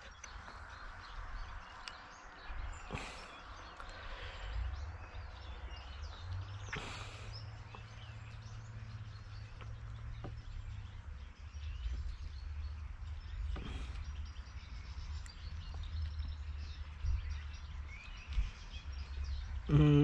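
Small clicks and rustles of chainsaw carburetor parts being handled, over a steady low rumble and faint birdsong.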